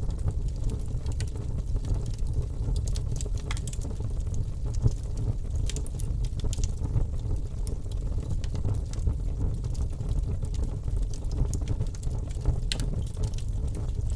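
Wood fire in a fireplace crackling, with many scattered sharp pops and snaps over a steady low rush of the flames.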